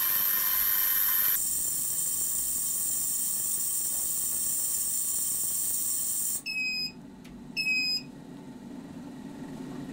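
Ultrasonic cleaner running with a horrible, loud high-pitched hiss and whine that cuts out about six seconds in as its timer runs down. Its timer then beeps twice, about a second apart, to signal the end of the cleaning cycle.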